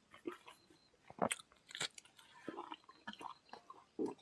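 Close eating sounds: chewing and mouth smacks as rice and curry are eaten by hand, with a few sharper crunches and clicks.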